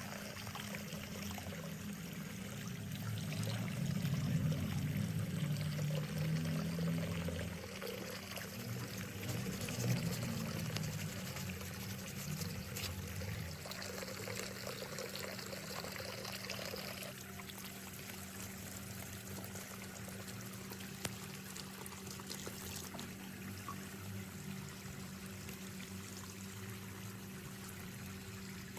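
Water pouring and splashing from an open pipe, louder for several seconds early on and then steadier, with a steady low hum underneath.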